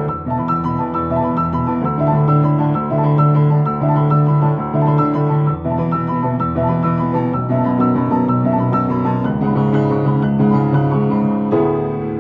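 Piano playing a chime melody over held chords, the notes sustained and changing about once a second; a new phrase starts with a fresh chord shortly before the end.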